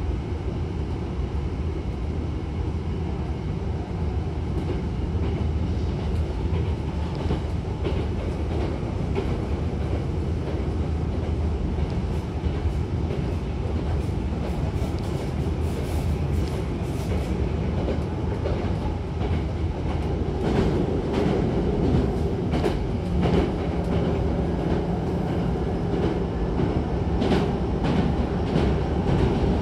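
Cabin of a Hankyu 9300 series electric train running, heard from inside the car: a steady rumble of wheels on rail. Clicks from rail joints come in about halfway through, and the rumble grows louder later on as the train goes out onto a river bridge.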